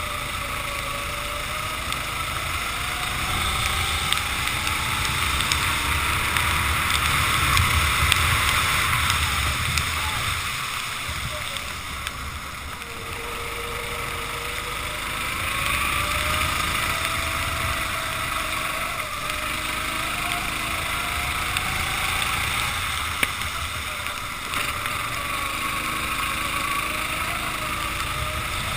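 Racing kart engine revving up and down through corners, its pitch rising on the straights and dropping as the throttle comes off, over a steady hiss of wind and wet spray on a rain-soaked track.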